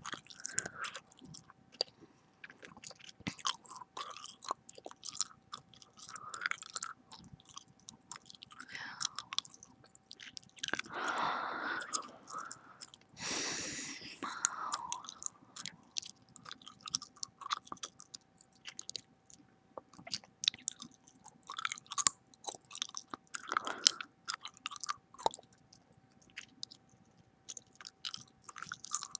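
Close-miked gum chewing: wet smacks and lip clicks from a mouth working a piece of gum, coming in irregular runs. About halfway through there are a few seconds of louder breathy noise.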